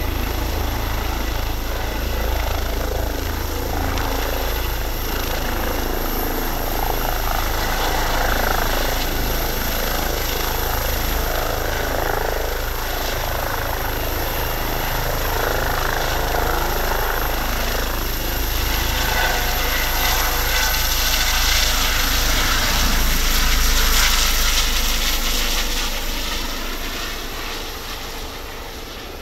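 Eurocopter EC135 twin-turbine helicopter hovering low, with the steady rumble of its main rotor and turbines and a high whine over it; the sound swells and then fades away over the last few seconds as the helicopter flies off.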